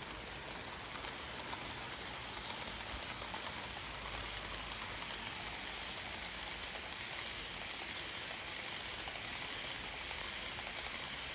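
HO scale model piggyback freight train rolling past, its many small wheels giving a steady rattling clatter on the sectional track, with fine rapid clicks over the rail joints.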